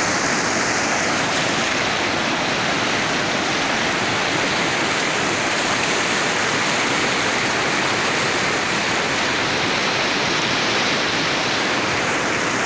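Steady rushing of river water, a continuous even roar of flowing water with no breaks.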